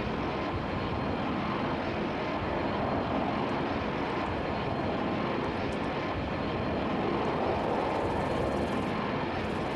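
Airbus A220-300 airliner with Pratt & Whitney PW1500G geared turbofan engines, flying overhead as it approaches: a steady jet rumble that grows a little louder about eight seconds in.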